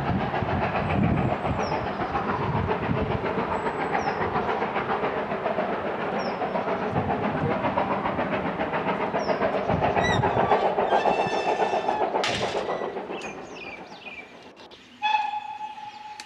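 Steam-hauled train running past on the line, its wheels clattering rhythmically over the rail joints, with birds chirping over it; the clatter fades away a few seconds before the end. Near the end a steam locomotive's whistle sounds briefly.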